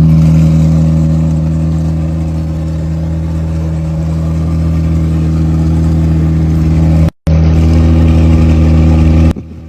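Sports car engine running at a steady, low, even pitch, with a brief cut about seven seconds in.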